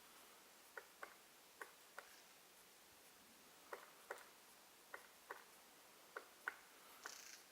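Black woodpecker pecking at wood: about a dozen single, irregular blows, often in pairs about a third of a second apart with short pauses between, not a drumming roll.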